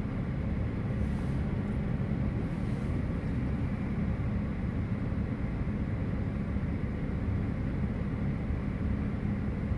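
Steady low machinery rumble with a continuous hum, unchanging throughout.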